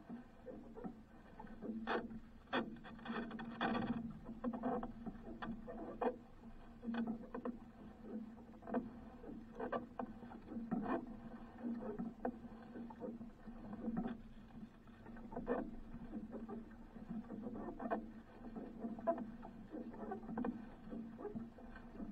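Irregular knocks and taps on a wooden outrigger canoe, with water lapping at the hull, as a fisherman handles a handline coil; a low steady hum runs underneath. The knocks come thickest a couple of seconds in.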